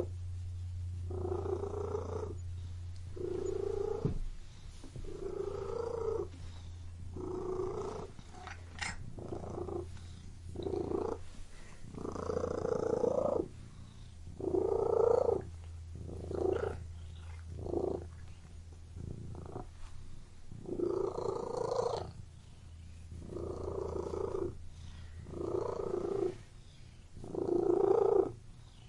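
Domestic cat purring close up, in a steady rhythm of swells about every one and a half to two seconds as it breathes in and out.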